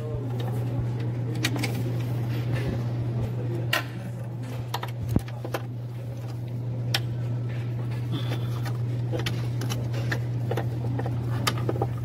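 Hand tools at work in an engine bay: scattered clicks and clinks of a ratchet and socket extension against metal, over a steady low hum.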